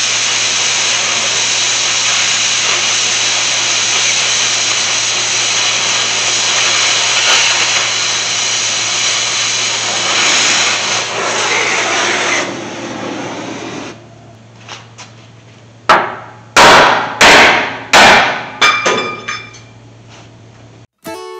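Plasma cutter hissing steadily as it cuts a C-notch through a 1991 Chevy C1500's rusty steel frame rail; the hiss trails off a little past halfway. Near the end come about five sharp, ringing metal strikes close together.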